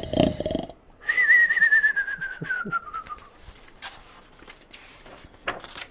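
A man imitating a sleeping bear's snore, cartoon-style: a short rough snoring in-breath, then a long whistled out-breath that slides down in pitch over about two seconds.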